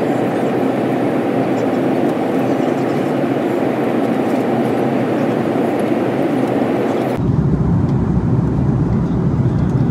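Steady airliner cabin roar from inside an Airbus A330-300: engine and airflow noise. About seven seconds in, the sound changes abruptly to a deeper, lower rumble with less hiss.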